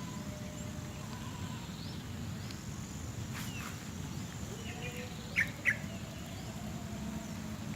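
Outdoor ambience with a steady low rumble and a few short bird chirps. The two sharpest chirps come close together about five and a half seconds in.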